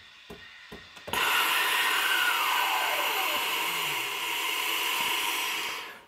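Steam wand of a Sage espresso machine hissing steadily, starting abruptly about a second in and cutting off just before the end, with a tone sliding downward partway through. A few faint ticks come before it.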